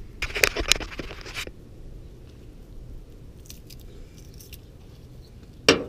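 Packaging being unwrapped: about a second of crinkling and crackling just after the start, a few faint ticks in the middle, and a sharp click near the end.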